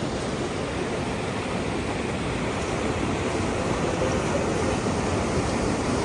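Steady rush of churning water in a river-rapids raft ride's channel, an even noise without breaks.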